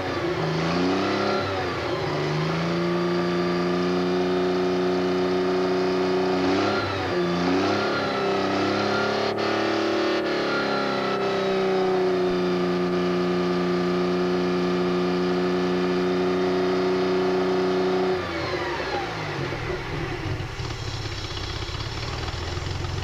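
1957 Mercedes-Benz 300SL's direct-injected straight-six engine running with no load on a test stand. It revs up and holds a steady fast run, with a brief dip and pick-up in the middle. About eighteen seconds in, the throttle is released and the revs drop back toward idle.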